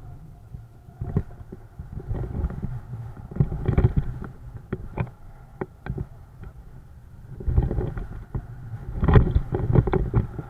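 Wind buffeting the microphone: an uneven low rumble that swells in gusts, with scattered sharp clicks and knocks.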